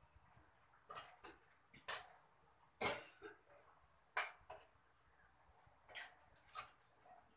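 A spatula scraping and knocking against a pan on the stove during stirring: about eight short, separate scrapes at an uneven pace, the loudest a little under halfway through.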